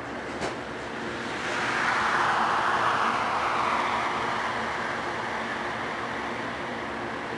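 Massey Ferguson 8570 rotary combine engine running steadily while harvesting corn, with a rush of noise that swells about two seconds in and slowly fades. A single click sounds near the start.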